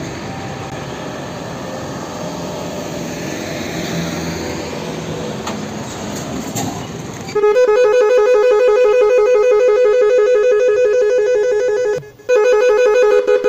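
Intro music: a dense, noisy passage for about the first seven seconds, then a loud, steady, pulsing electronic tone that drops out briefly near the end and comes back.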